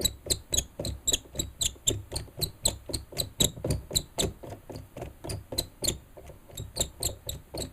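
Background music with a steady, quick ticking beat of about five ticks a second over a low pulse.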